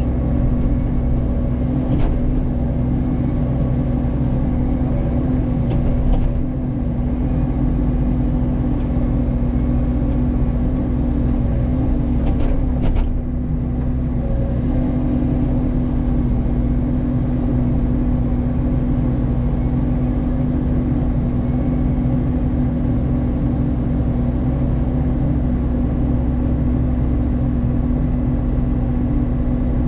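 Mini excavator running a hydraulic RUT brush cutter head: a steady, loud engine and cutter drone, with a few sharp knocks and brief dips in level as the head works through brush.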